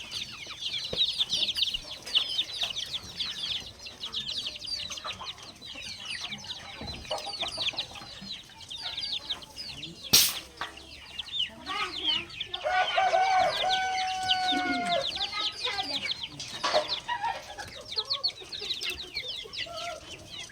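Chickens calling: a steady stream of quick, high-pitched cheeps and clucks, with one longer drawn-out call lasting about two seconds past the middle. There is a single sharp click about ten seconds in.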